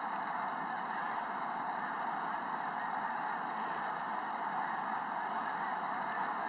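A huge flock of snow geese calling together, a steady, unbroken din of countless overlapping calls.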